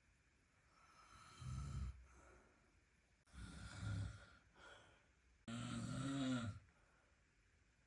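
A sleeping person snoring: three snores about two seconds apart, each roughly a second long, with quiet breathing between them.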